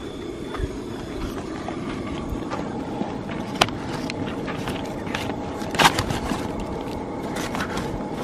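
Steady low rumbling noise, with a few sharp clicks and taps, the loudest about three and a half and six seconds in, as a kitchen knife slits chorizo sausages from their casings on butcher paper.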